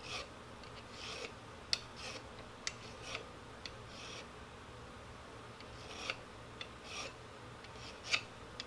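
Short rasping strokes of a hand pillar file on a steel rivet head, dressing down the rivet that holds the gas piston to a PSL bolt carrier until it is flush. The strokes come about once a second, with a pause of a second or so midway and a few light metallic clicks.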